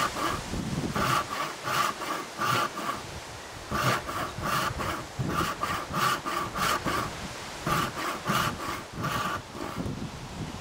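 Disston No. 5 brass-backed backsaw, filed with 6 degrees of rake and 5 degrees of fleam, cutting down through a small piece of wood by hand. Quick back-and-forth strokes, several a second, in runs with a few short pauses, stopping near the end as the cut nears its depth.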